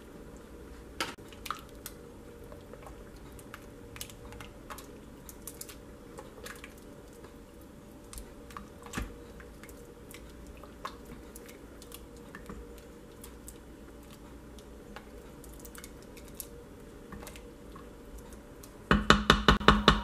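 Scattered light clicks and taps of a silicone ladle stirring vegetable soup in a stainless steel Instant Pot inner pot, over a low steady hum. Near the end a loud, rapid stuttering burst, a glitch transition sound effect.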